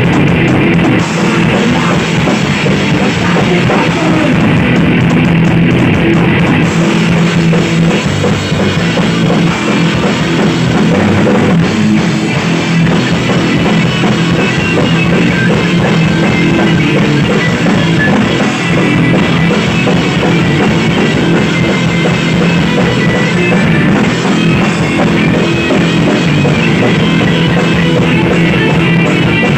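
Punk rock band playing live in a small rehearsal room: electric guitars and a drum kit, loud and continuous.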